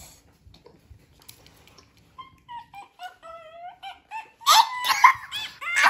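A child's high-pitched whining squeal gliding up and down, growing louder about halfway through and breaking into squealing giggles near the end.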